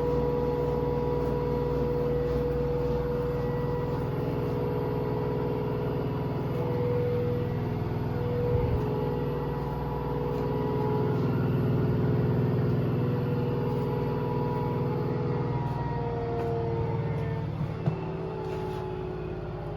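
Washing machine ramping down: a steady motor whine over a low rumble, the whine's pitch starting to fall about fifteen seconds in as the drum slows. A knock about halfway through and a sharp click near the end.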